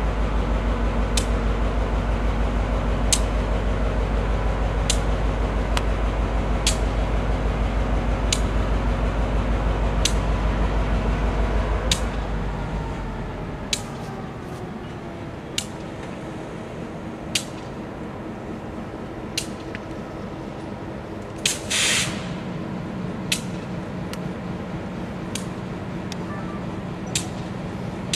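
EMD GP38 diesel locomotive's 16-cylinder two-stroke engine running loud as it pulls a passenger train away, fading to a lower hum about twelve seconds in. A sharp click repeats about every two seconds, and a brief hiss comes about two-thirds of the way through.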